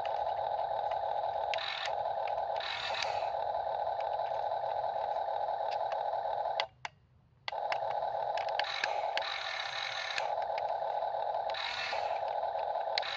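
Electric motors and gearboxes of a Huina 1/14 scale RC excavator whining steadily as the model works, with repeated bursts of gear rattle. They stop for under a second about seven seconds in, then start again.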